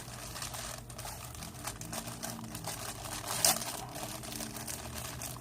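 Packaging crinkling and rustling as parts of a boxed statue are unwrapped and handled, with one sharper click about three and a half seconds in.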